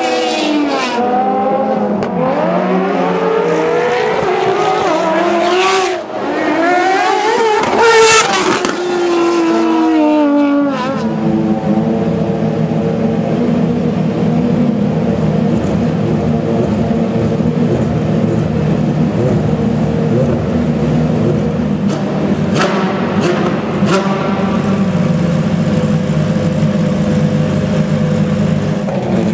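Ferrari FXX-K's V12 engine revving, its pitch climbing and falling repeatedly as it drives on the track. About ten seconds in, the sound cuts to a Ferrari XX-programme V12 idling steadily, with two short sharp sounds a little past the middle.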